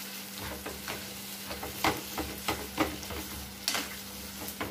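Gongura (roselle leaf) chutney frying in a non-stick kadai with its tempering of dried red chillies, garlic and curry leaves, sizzling steadily while a spatula stirs it. Several irregular scrapes and knocks of the spatula against the pan come through the sizzle.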